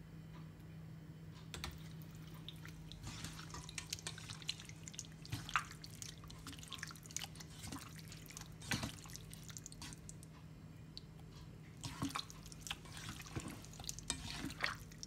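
Raw baby octopus in marinade being tossed and stirred with silicone-tipped tongs in a stainless steel bowl: irregular wet squelches and light clicks, over a faint steady low hum.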